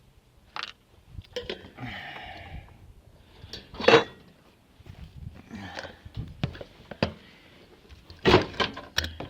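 Scattered clicks, knocks and rustles of small hard parts being handled while working on a car's wiring loom, with a sharp knock about four seconds in and a cluster of clicks near the end.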